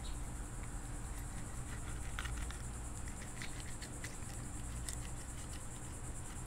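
Steady high-pitched insect chorus, with scattered small clicks and crunches of a fillet knife cutting along a mangrove snapper's backbone.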